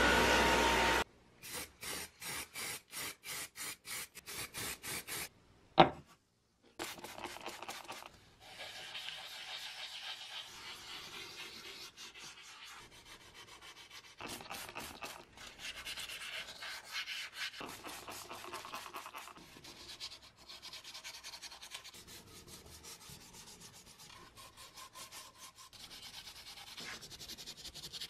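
An electric orbital sander runs and stops about a second in. Then comes hand sanding: sandpaper rubbed back and forth over the primed metal base of a car horn, first in quick even strokes, then in irregular rubbing. There is one sharp knock about six seconds in.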